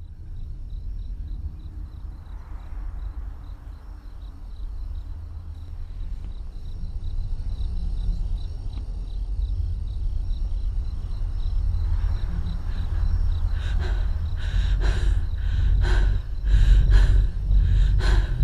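Horror-trailer soundtrack: a low rumbling drone swells slowly, with a faint high pulsing tone over it. About two-thirds of the way in, sharp hits begin landing about twice a second, getting louder.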